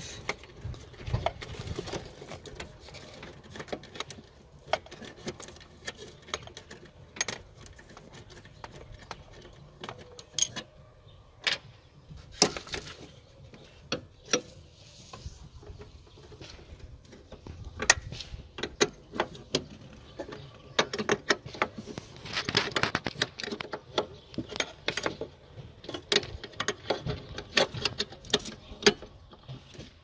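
Steel combination spanner clicking and clinking on the bolts and surrounding metal as the bolts holding the car's wiper motor are undone: scattered sharp metal clicks and knocks, with a denser run of clicks about two-thirds of the way through.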